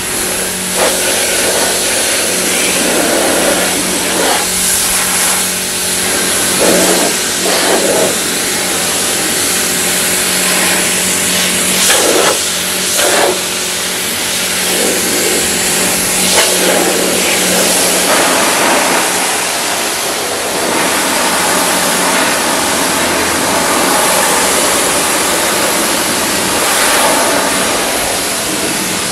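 Electric pressure washer running with a steady hum, its high-pressure jet hissing and spattering against a mud-caked car body.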